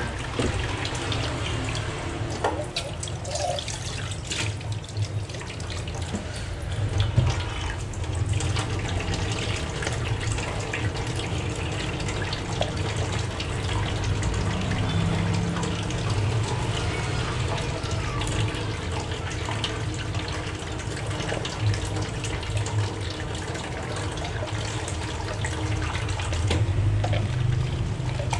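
Tap water running steadily into a stainless steel kitchen sink while stainless steel bowls are scrubbed with a sponge and rinsed, with a few clinks of the metal bowls in the first several seconds.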